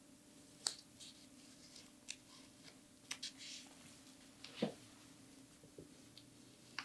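Faint, short scratches of tailor's chalk being stroked over a wool blanket around a paper template, coming a few at a time at irregular intervals. A soft knock of hands on the tabletop about four and a half seconds in.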